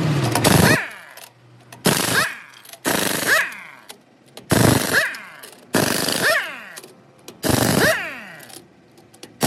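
Heavy impact wrench hammering on a truck wheel's lug nuts in short bursts of about a second, six times, one nut after another. Each burst ends in a falling whine as the tool winds down.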